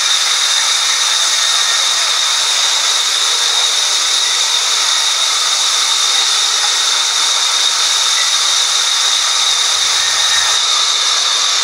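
Sawmill vertical band saw cutting lengthwise through a slab of wood: a loud, steady hissing whine with a high, unwavering tone.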